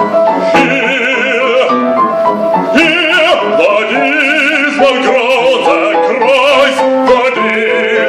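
A male opera singer singing with a wide vibrato, accompanied by a grand piano playing quick running notes.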